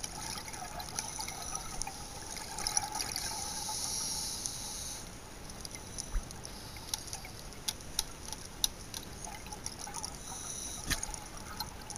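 Scuba diver's regulator heard underwater: bubbling, then a hiss of about two and a half seconds starting a few seconds in, and a shorter hiss near the end, with scattered sharp clicks throughout.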